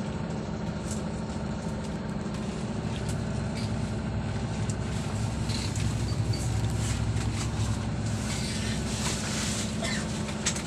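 Bus engine running steadily, heard from inside the passenger cabin as an even low hum.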